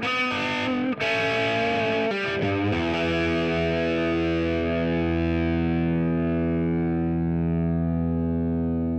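Music on distorted electric guitar: a run of quick notes, then a chord struck about three seconds in and left to ring out, slowly fading.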